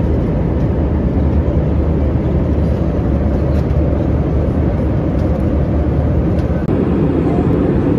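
Steady low rumble of an Airbus A320-200's cabin noise, engines and airflow heard from a seat inside the cabin, loud and even, with a slight shift in tone near the end.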